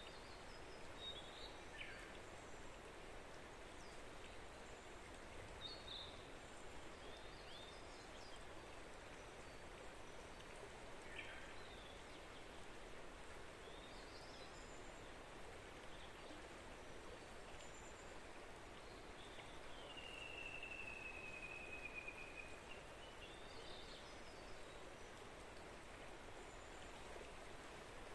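Small songbirds calling in short, scattered chirps over a steady rush of flowing water. About two-thirds of the way through, one bird gives a long whistled note of about two seconds that falls slightly in pitch.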